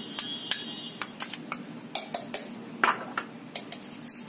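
Steel spoon clinking and tapping against a stainless steel mixer-grinder jar in an irregular run of sharp clinks, the loudest about three seconds in.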